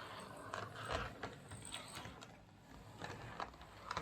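Hornby OO gauge Class A1 model locomotive running slowly on the track: its motor and gears whir, with irregular clicks and rattles from the wheels and drive. The running is still uneven, which the repairer puts down to poor current pickup through its worn and broken wheel pickups.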